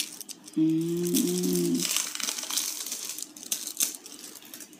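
Plastic packaging crinkling and rustling, with small clicks, as Play-Doh moulding tools are handled and unwrapped. A short hummed note from a voice sounds over it for about a second, near the start.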